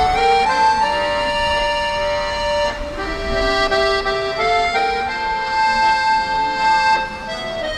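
Piano accordion playing solo: a melody of long held notes over sustained chords.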